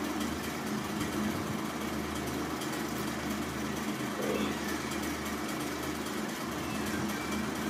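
A small motor humming steadily.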